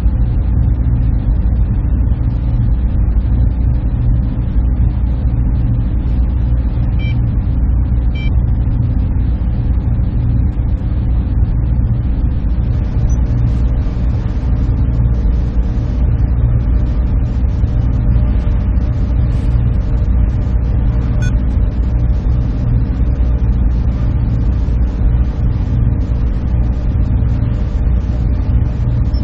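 Server room machinery running with a steady, unchanging low hum.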